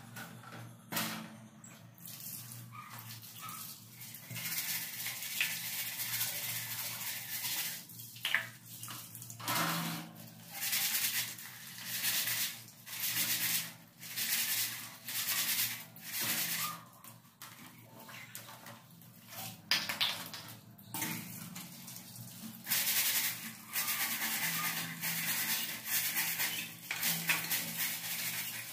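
A standing fan's wire guard being scrubbed by hand with a sponge on a wet tiled floor: runs of short scrubbing strokes, about one a second, with pauses between them.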